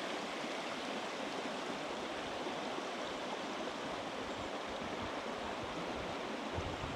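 Steady rush of the low Sulby River running over its stony bed, with a soft low bump near the end.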